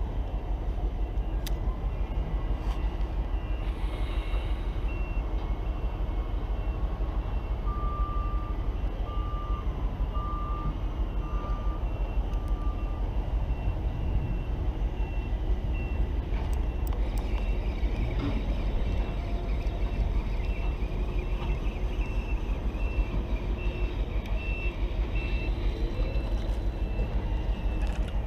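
A steady low rumble with fast flutter, like wind and motor noise on a boat. Over it, short electronic beeps repeat about once a second, like a reversing alarm: a lower-pitched run of about six beeps partway through, and a higher-pitched series through the later part.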